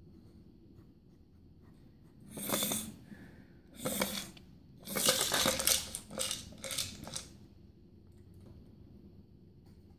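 Friskies Wobbert, a plastic wobbling treat-dispenser with cat treats inside, rattling and knocking on a wooden floor as a cat bats it. Three bursts of rattling come about two, four and five seconds in; the last lasts about two seconds.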